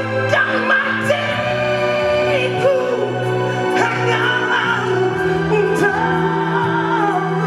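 A band playing a song with a singer's voice gliding over long held low notes.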